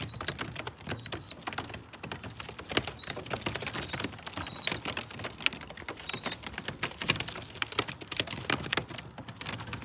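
A flock of racing pigeons pecking feed off the loft's landing board: a rapid, irregular tapping of many beaks, with a few short high chirps now and then.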